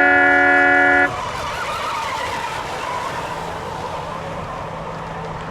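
A horn sounds the start of an RC boat race and cuts off about a second in. The racing RC boats' engines then run on as a wavering high whine.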